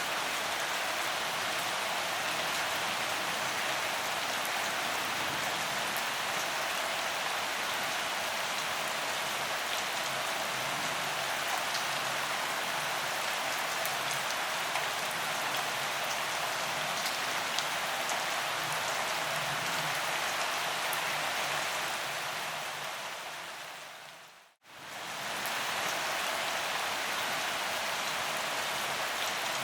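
Steady gentle rain falling, a dense even hiss with fine drop ticks. About 22 seconds in it fades down to a brief silence and swells back up about a second later, a loop point in the recording.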